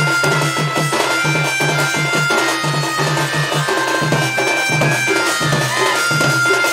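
Live Sambalpuri folk dance music: a two-headed barrel drum (dhol) beaten in a quick, steady rhythm, with an electronic keyboard holding long melody notes above it.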